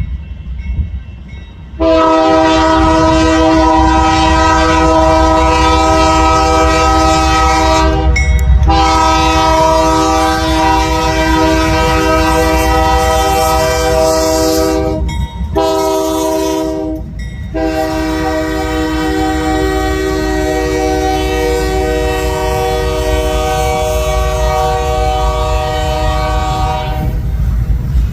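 Union Pacific C44ACM locomotive's Nathan K3HA three-chime air horn blowing the grade-crossing signal: two long blasts, a short one, then a long final blast. Under the horn is the rumble of the approaching diesel-electric train.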